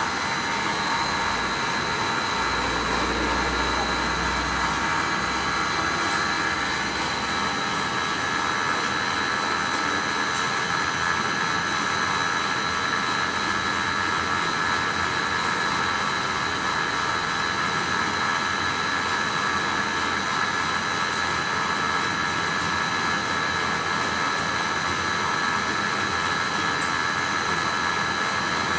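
FTPEG 1000 compound bubble film machine running: steady machinery noise with a constant high whine.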